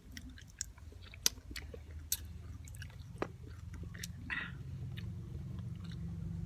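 A person biting and chewing whole raw calamondins, with a few sharp clicks from the mouth as the fruit is bitten.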